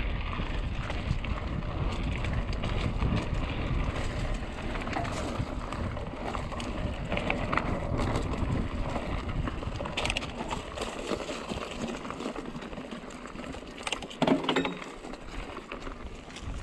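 Trek Remedy 7 mountain bike being ridden on a dirt trail: steady tyre noise and wind on the action camera's microphone, with scattered clicks and rattles from the bike. A short, louder noise comes near the end.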